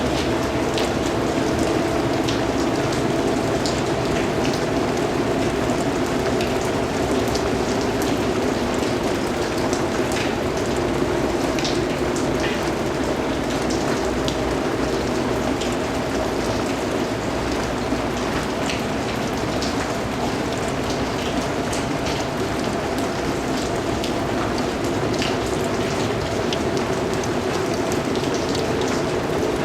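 Steady rain falling on a surface, a constant hiss with many individual drops ticking through it.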